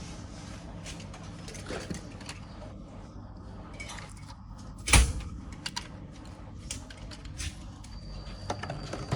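Clicks and knocks of plastic Transformers action-figure parts being handled and moved, with one loud knock about five seconds in.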